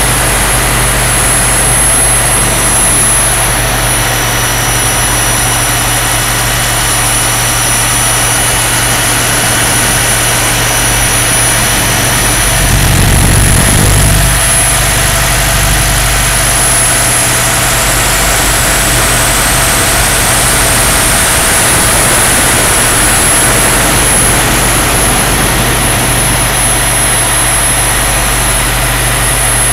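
A 3.4 m scale EC135 model helicopter in flight, heard from a camera mounted on top of it: the loud, steady drone of its engine and rotor with a high, steady whine. About halfway through, as it banks into a turn, a brief low surge rises and falls.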